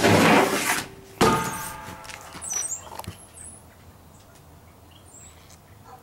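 A large pleated air filter being handled and turned over: a scraping rustle, then a knock with a short ring about a second in, and a few faint clicks.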